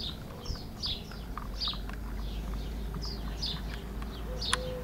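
Prairie dog calling: a steady series of short, high, downward-sweeping chirps, about two a second, the repeated alarm call of the colony. A single sharp click sounds near the end.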